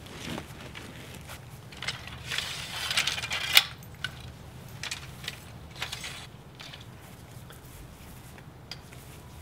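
Handling noise of a tall wooden easel being set up: rustling and knocks of wood as it is pulled out and its legs spread. The loudest is a sharp knock about three and a half seconds in, then a few lighter knocks, quieter near the end.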